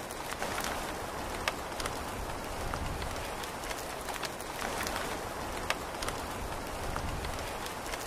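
Steady rain falling: an even hiss dotted with sharp taps of individual drops landing close by, two of them louder.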